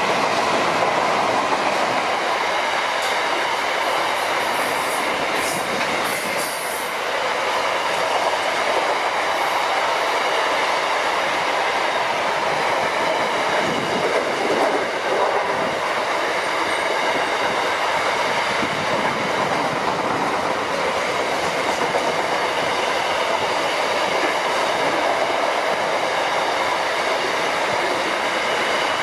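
Freight train passing close by: the tail of its EL class diesel locomotives and then a long run of container wagons, a steady loud rumble and rattle of wheels on the rails. A few brief high-pitched wheel squeals come about six seconds in.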